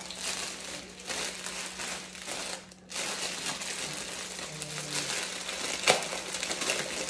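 Clear plastic poly bag crinkling as it is handled and pulled open, with a brief pause about three seconds in and one sharp crackle near the end.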